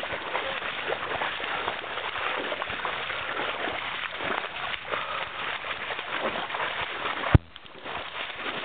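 Boots wading and splashing through shallow icy meltwater, an uneven sloshing that goes on throughout. A single sharp knock about seven seconds in, after which the splashing is quieter.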